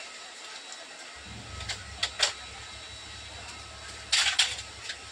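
Steady airliner cabin hum, with a low drone setting in about a second in, broken by two sharp clicks and then a louder short clatter a little after four seconds.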